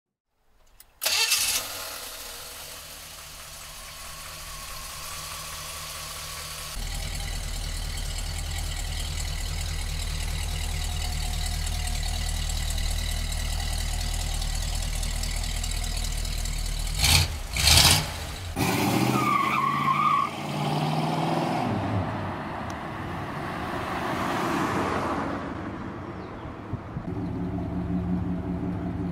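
Buick Riviera's 455 V8 starting about a second in and settling into a steady idle, which grows louder about seven seconds in. Two short, sharp blips come around the middle, and in the last third the engine runs unevenly, as it does when the car pulls away.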